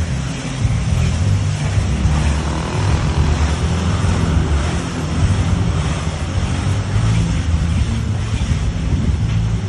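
Tunnel car wash machine running: water jets spraying and rotating brushes scrubbing a car, with a steady low rumble under an even hiss of spray.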